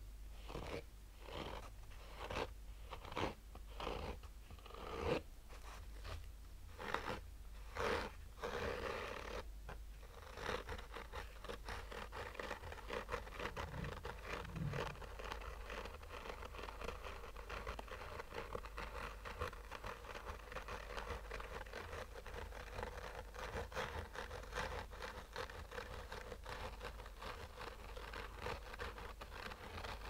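Fingernails scratching the textured surface of a hard sunglasses case: slow, separate strokes for about the first ten seconds, then quicker, continuous light scratching.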